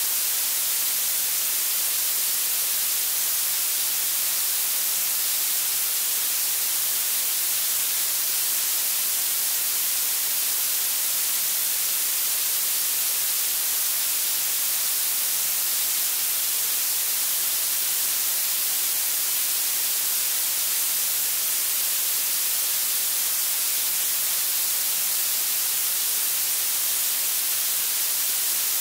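Blue noise: a steady, even hiss that does not change, weighted heavily toward the treble so it sounds bright and sharp, with little low end.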